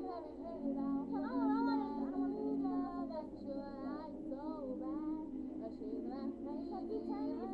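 A young voice singing an R&B melody with sliding, ornamented runs over a playing instrumental backing track of long held chords.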